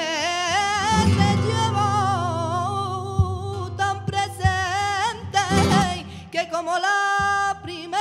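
A woman singing flamenco cante por soleá: one long, heavily ornamented wordless line with wavering pitch, breaking briefly before a last held note that stops near the end. Flamenco guitar accompanies underneath.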